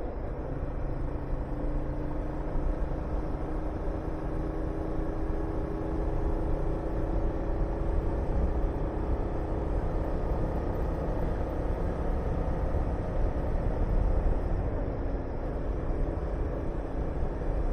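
Honda VTR250 90-degree V-twin engine running while the motorcycle is ridden, under heavy wind rush on the microphone. The engine note climbs gently over the first several seconds.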